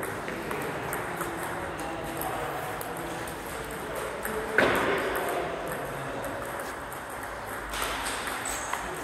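Table tennis balls clicking off bats and tables in repeated short ticks during rallies, with one louder knock about four and a half seconds in.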